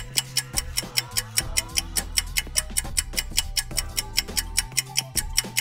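Background music: a fast, clock-like ticking beat, about eight ticks a second, over a low bass line that changes note every second or so.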